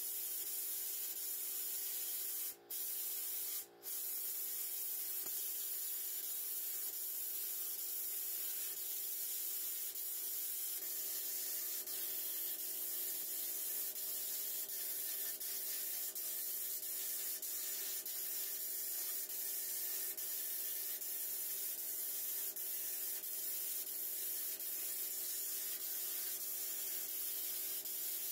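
Sandblasting gun hissing steadily in a blast cabinet as abrasive strips rust from steel vise parts, cutting out twice for a moment about three seconds in.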